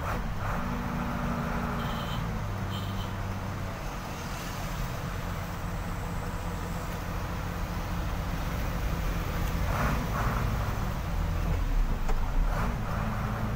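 Truck engine running steadily, heard from inside the cab, with traffic passing outside. Two short high beeps sound about two seconds in.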